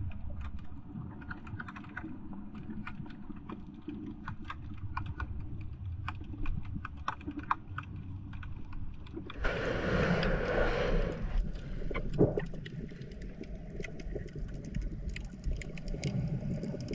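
Underwater sound picked up by a GoPro in its waterproof housing: a low muffled rumble with many small sharp clicks crackling throughout. About ten seconds in, a louder rushing swell passes.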